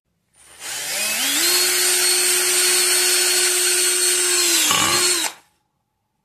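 Cordless drill motor spinning up a brass spinning top gripped by its stem in the chuck: a whine that rises in pitch for about a second, runs steady at full speed, dips briefly and recovers near the end, then cuts off.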